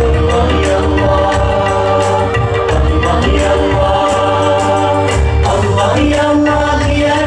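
Live nasyid music: a male lead singer sings a melody through the PA over dense percussion and a heavy bass.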